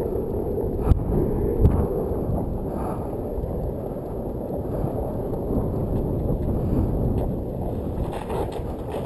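Longboard wheels rolling over asphalt: a steady rumble with wind buffeting the microphone. There is a short knock about a second in and another just after.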